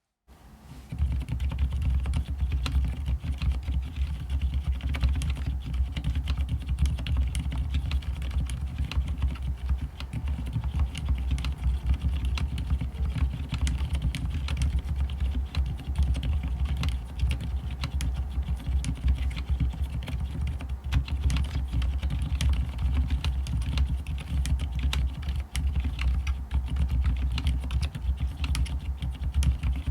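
Continuous typing on a mechanical keyboard with fully lubed Cherry MX Silent Red switches, starting about half a second in: a dense run of muted keystrokes with a deep low thud. The lubed silent switches add almost no noise of their own, so what is heard is mostly fingers striking the keycaps.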